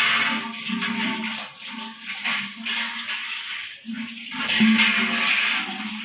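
Water splashing and hands scrubbing a stainless steel pot while it is washed, with background music playing.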